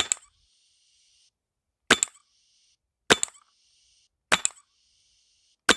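Lightning Strike Fieldmaster 2000 paintball marker firing five shots about a second apart. Each shot is followed by a short hiss of escaping gas that stops on its own: a small leak that seals up again right away.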